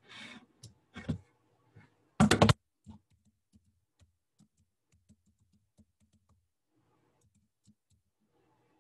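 Computer keyboard typing: keys tapped in an irregular run, with a loud cluster of strokes about two seconds in, then light scattered taps that stop a couple of seconds before the end.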